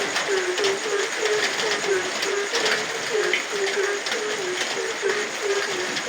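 Frogs croaking in a quick, even series, about three to four short calls a second, over steady rain with scattered drips.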